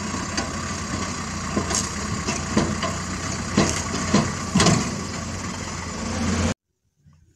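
Hitachi hydraulic excavator's diesel engine running steadily while the bucket digs into rock, with several sharp knocks and scrapes of stone against the bucket, loudest a little past halfway. The sound cuts off suddenly about six and a half seconds in.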